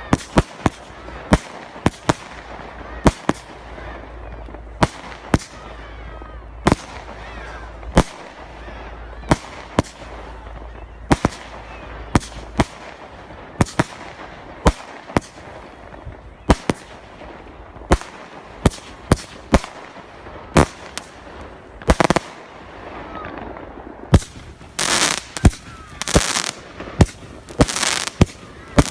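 Fireworks going off: a steady run of sharp bangs about once or twice a second. Near the end come longer crackling bursts.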